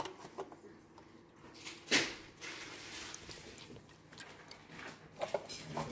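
Quiet kitchen handling sounds while ingredients are added to a bowl: a few small clicks and knocks, with a short rush of noise about two seconds in.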